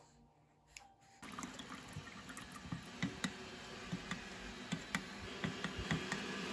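Running water that starts suddenly about a second in, with many small drips and splashes.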